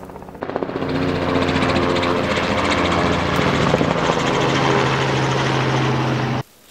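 Helicopter flying over: a loud, steady rotor chop with a low engine hum. It starts about half a second in and cuts off suddenly near the end.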